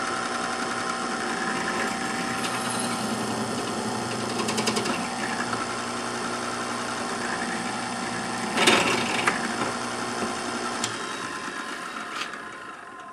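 Benchtop drill press motor running steadily while its bit cuts a hole through a metal rod, with a few short scraping bursts and one louder grinding scrape a little before the nine-second mark. The motor winds down and fades near the end as the press is switched off.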